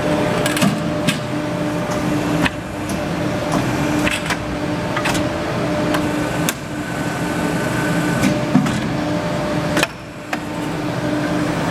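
CNC tube bending machine running: a steady hum with sharp clicks and knocks every second or two as it works through its bending cycle. The hum dips briefly near the end.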